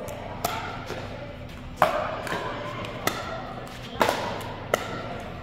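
Pickleball paddles hitting a plastic ball in a rally, five sharp hits about a second or so apart, echoing in a large gym hall.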